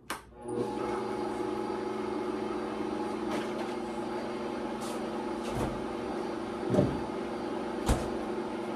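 Countertop blender switched on with a click and running steadily at high speed, with a couple of sharp knocks near the end.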